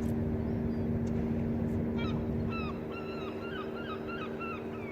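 A steady low machinery hum of several held tones, with a bird calling in a quick series of short, bending cries from about two seconds in.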